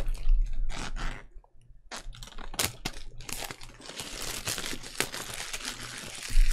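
Clear plastic shrink-wrap being torn and pulled off a boxed tarot deck, crinkling and crackling. It pauses briefly about a second in, then crinkles densely through the second half.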